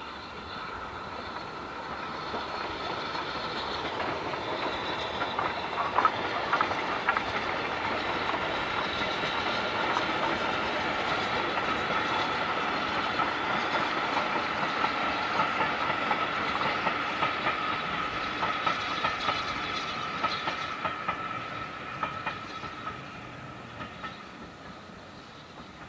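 BR Standard Class 4MT 2-6-4 tank engine and its coaches passing, the wheels clicking over the rail joints, with a steady high-pitched ring. It grows louder, is loudest as the engine goes by and fades away as the coaches draw off.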